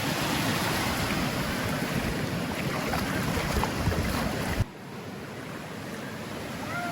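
Steady rushing noise of surf with wind on the microphone. About four and a half seconds in it drops abruptly to a quieter hiss.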